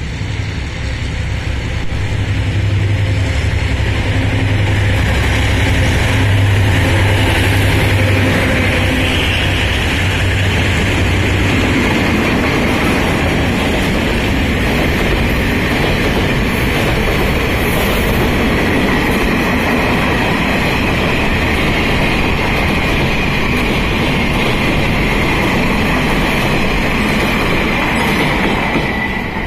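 Taiwan Railways R100-class diesel-electric locomotive passing with a deep engine rumble, which fades about twelve seconds in. Then a long freight train of flatcars and boxcars rolls by with steady wheel-on-rail noise and a high wheel squeal.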